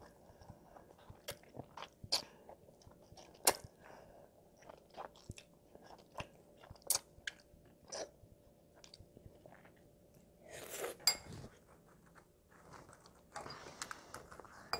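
A child eating jjajangmyeon (black bean noodles): wet chewing with sharp mouth clicks and smacks, and a longer, louder stretch of eating noise about ten and a half seconds in.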